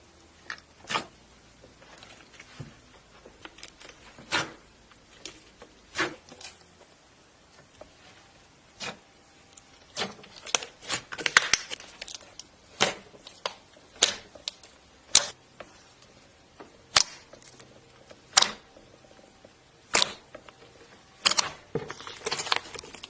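Slime being pressed and squeezed by hand, giving sharp, irregular clicks about every second or two, with short runs of crackling a little before the middle and again near the end.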